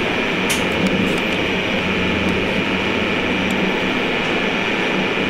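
Steady running noise of a train heard from inside the driver's cab as it rolls along the track, with a low drone underneath and a few sharp clicks, the loudest about half a second in.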